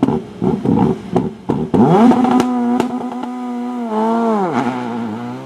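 Rally car engine blipped over and over, about three revs a second, with sharp cracks. About two seconds in it rises to steady high revs and holds there, typical of revs held on the line at a stage start. Near the end the revs drop sharply, then begin climbing again as the car pulls away.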